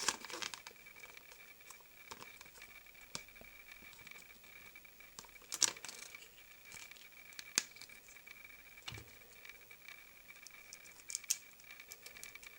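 Faint scattered clicks and crinkles of Kinder Surprise eggs, their wrappers and small plastic toy parts being handled, a few sharper clicks standing out now and then.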